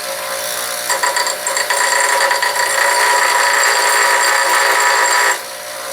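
A handheld power tool runs with a steady whine from about a second in and cuts off suddenly shortly before the end, grinding smooth a metal end that is mushroomed from hammering.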